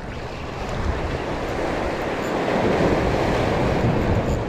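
Sea waves breaking and washing over shore rocks, swelling louder from about halfway through, with wind buffeting the microphone.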